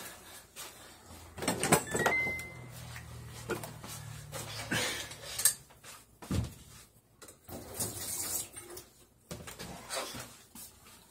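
Scattered knocks, clicks and clatter of someone moving about a small kitchen off-camera, with a short high squeak about two seconds in.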